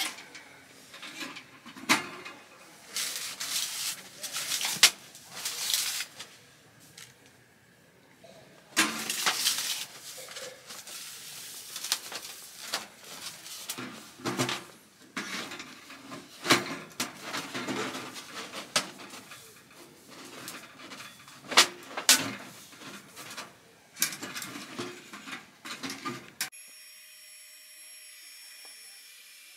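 Irregular clatter of objects being handled: a string of knocks, clinks and scrapes. About 26 seconds in it cuts off to a quiet steady hiss with a faint whine.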